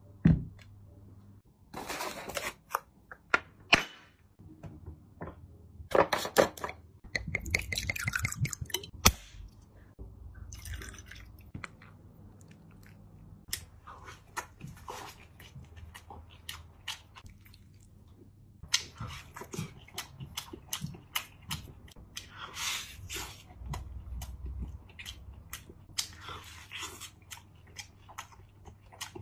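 Close-up eating sounds: a man biting into and chewing a crispy rice pancake and cheese-topped lobster. Crunching, wet chewing and mouth clicks come in irregular bursts.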